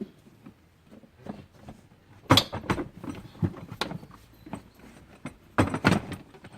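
Plastic knocks and clicks of an infant car seat being handled and fitted onto its base. There is a loud pair of knocks about two and a half seconds in, a few lighter clicks, and a sharp cluster of knocks near the end.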